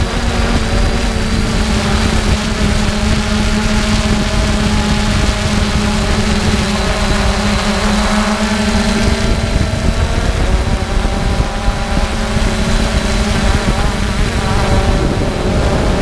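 3DR Solo quadcopter's electric motors and propellers humming steadily, recorded by the drone's own onboard GoPro, over a rough low rumble. The pitch of the hum shifts a little about halfway through and again near the end.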